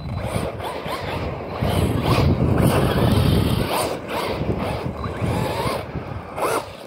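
Arrma Big Rock v3 RC monster truck's electric motor whining up in pitch in short bursts of throttle, about four times, over a rough rolling noise from its tyres on loose gravel.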